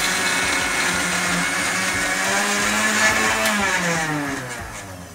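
Electric mixer grinder dry-grinding roasted chana dal with chilli, tamarind and dry coconut for chutney, the first dry grind before water goes in. About three and a half seconds in it is switched off, and the motor winds down with a falling pitch and fading sound.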